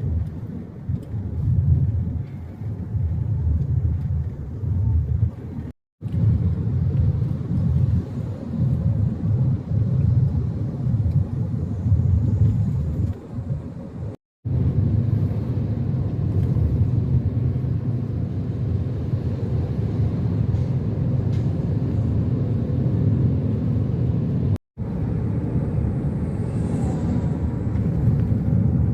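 Road noise of a vehicle travelling on a highway: a steady low rumble, cut off briefly three times by short gaps.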